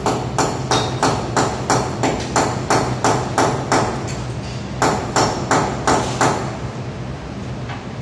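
Hammer blows struck in a steady rhythm, about three a second: a run of about a dozen, a pause of about a second, then about five more, stopping a little after six seconds in.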